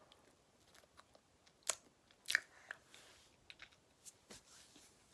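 Mouth noises of eating a hard sour lollipop: a scatter of sharp clicks and crunches from the candy in the mouth, the two loudest close together about two seconds in.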